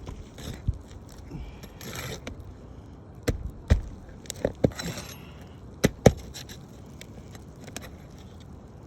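Hand tools working on roof shingles: scraping, then six sharp knocks in three quick pairs in the middle.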